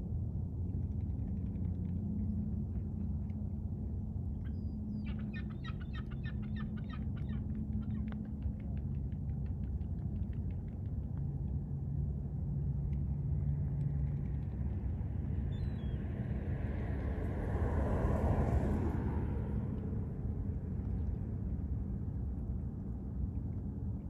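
A motor running steadily with a low rumble and a faint hum that shifts a little in pitch. About five seconds in, a bird gives a rapid chattering call for a few seconds, and near the end a brief swell of hiss rises and fades.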